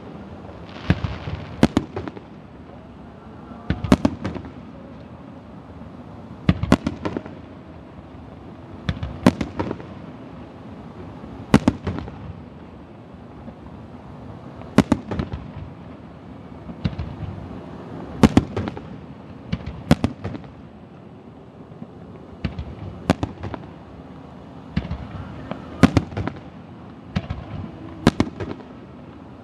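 Aerial fireworks bursting: sharp bangs every two to three seconds, often in quick pairs or triples, with a low echoing rumble between them.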